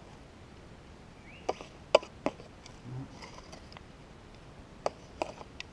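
Hands and a plastic scoop working loose, gravelly soil: a few sharp knocks and scrapes, the loudest about two seconds in, with two more near the end. A faint short rising chirp comes about a second in.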